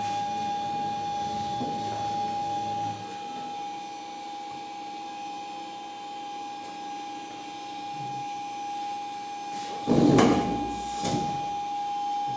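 Small CNC milling machine's spindle running at speed with a steady high whine. About ten seconds in come two loud, short bursts of noise, about a second apart.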